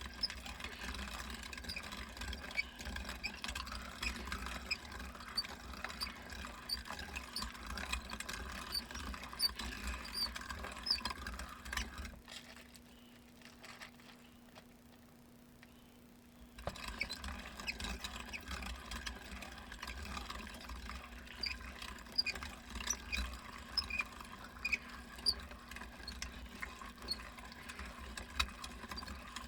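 Weston No. 32 meat grinder grinding meat: a steady hum with many small high squeaks and ticks. The grinding noise drops away for about four seconds midway, leaving only the hum, then comes back.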